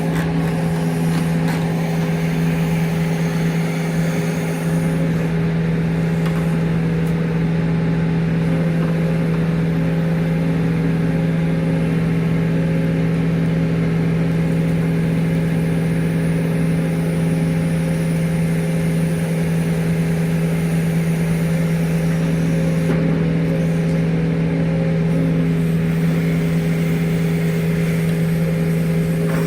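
An engine running steadily at a constant speed, a loud even hum with no change in pitch.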